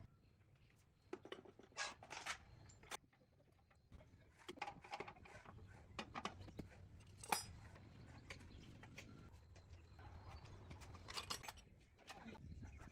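Scattered light knocks and clicks over a faint low hum, with one sharper click about seven seconds in.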